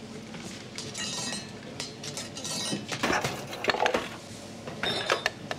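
Drink vending machine dispensing: a run of clattering, clinking knocks as the drink drops into the delivery slot.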